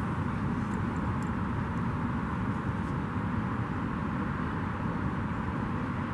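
Steady outdoor rumble with no distinct calls or events.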